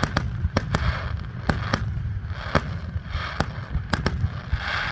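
Fireworks going off: a rapid, irregular series of sharp bangs, about a dozen in five seconds, with crackling between them over a steady low rumble.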